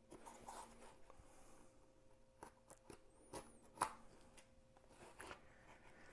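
Near silence with faint rustling and a few soft clicks of a canvas package being handled, the clearest a little past three seconds and near four seconds in.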